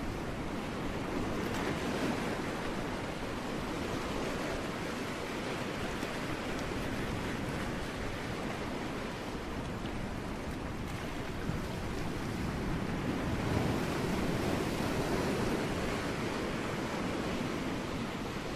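Ocean waves breaking on rocks: a continuous wash of surf that swells a little near the start and again about two-thirds of the way through.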